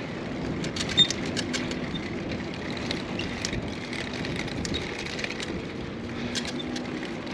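Bicycle rolling over rough stone paving: a steady rolling noise with frequent small rattles and clicks, and one sharper knock about a second in.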